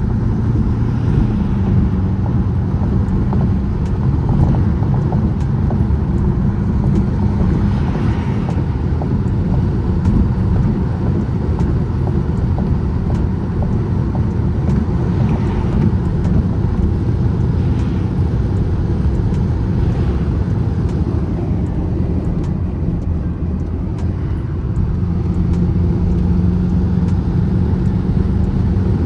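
BMW M6 engine and tyre noise heard from inside the cabin while driving in traffic: a steady low drone, with a held engine note near the start and again near the end.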